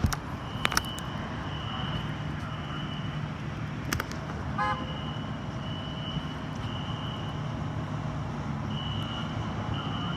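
Fire alarm horn sounding the temporal-3 evacuation pattern: groups of three high beeps with a pause between groups, during a test of the building's notification appliances. A steady low traffic hum runs underneath.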